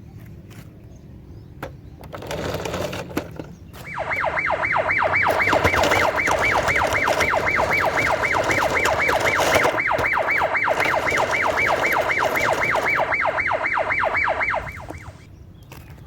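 Toy police car's electronic siren sound effect: a fast yelp-style wail that repeats about four times a second. It starts about four seconds in and cuts off near the end.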